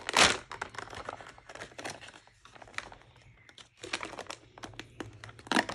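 Clear plastic window packaging of a toy box crinkling and crackling as hands handle it and work a doll out of it. There is a loud rustle just after the start, then a quieter stretch in the middle before the crackling picks up again.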